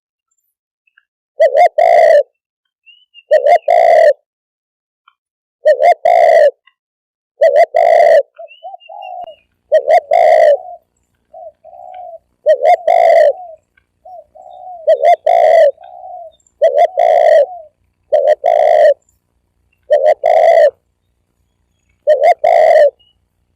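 Spotted dove calling loud and close: a cooing phrase of two quick notes, repeated about every two seconds, with a few softer short coos slipped in between some phrases.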